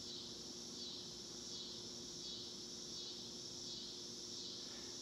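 Steady high-pitched insect chirring that swells and fades about every three-quarters of a second, with a faint steady low hum beneath.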